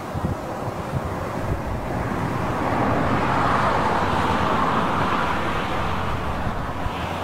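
Nissan B15 Sentra with a QG18DE engine, MagnaFlow stainless exhaust and gutted catalytic converter, driving past along the road. The sound swells as the car approaches, peaks in the middle and fades as it moves away.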